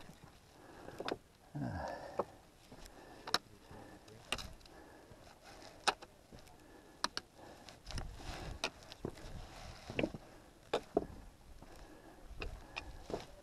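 Trekking pole tip and boots striking and scraping on granite boulders: sharp, irregular clicks and knocks, roughly one every second or so, with a couple of low rumbles.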